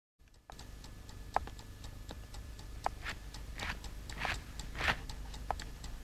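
Rapid, even ticking, several ticks a second, with a few sharper clicks and brief scuffing sounds scattered over it.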